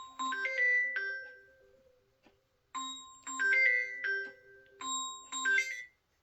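Mobile phone ringtone: a short tune of quick, clear high notes, repeated about every two seconds.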